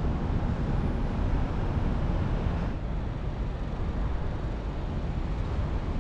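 Wind buffeting the microphone outdoors: an uneven low rumble over a steady hiss of open-air noise, with no clear engine tone. The noise changes a little at a cut about two and a half seconds in.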